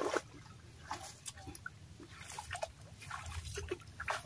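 Feet wading in shallow, weedy pond water, with irregular splashes and sloshes.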